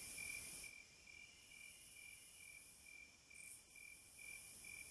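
Near silence, with a faint high chirp repeating about three times a second: a cricket calling.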